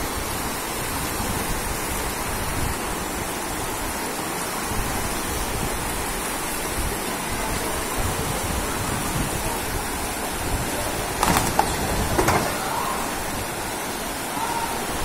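Steady rushing of fast floodwater pouring down a street, with a couple of brief knocks about eleven and twelve seconds in.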